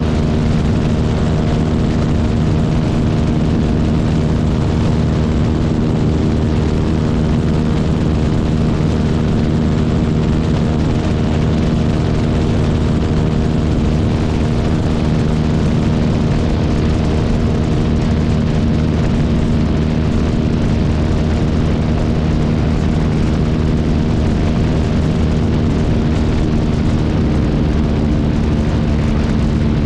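Single-engine seaplane in level flight: the piston engine and propeller drone evenly on a few steady low tones, with wind rushing over the microphone mounted outside under the wing.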